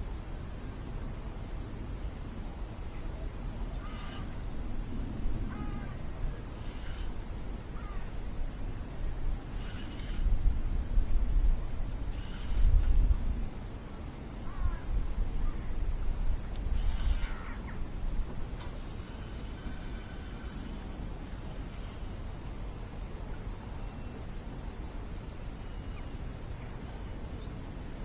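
Small birds chirping, short high chirps repeating over and over, with a few louder low rumbles in the middle.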